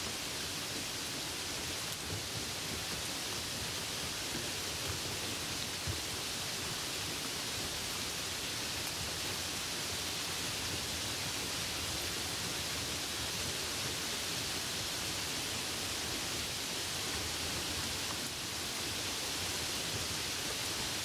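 Steady rain falling: a constant, even hiss with a few slightly louder drop taps.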